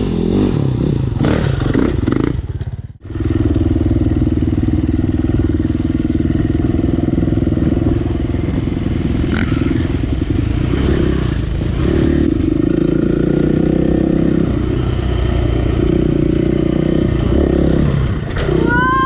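KTM EXC four-stroke single-cylinder enduro bike engine running as the bike is ridden along a dirt trail, its pitch rising and falling with the throttle. The sound breaks off abruptly about three seconds in and picks straight up again.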